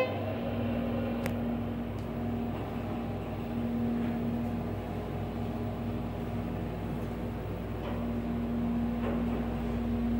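Schindler in-ground hydraulic elevator's submersible pump motor running with a steady hum, pitched around B-flat.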